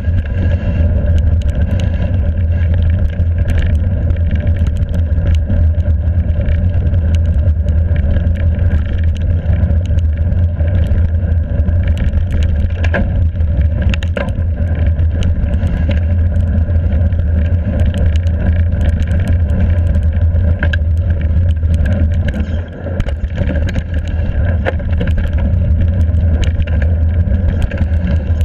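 Voodoo Bantu hardtail mountain bike descending a rough trail at speed: a steady, loud rumble of wind on the mic and tyre roar, with frequent sharp clattering knocks as the bike rattles over roots and rocks. The rumble briefly drops about three-quarters of the way through.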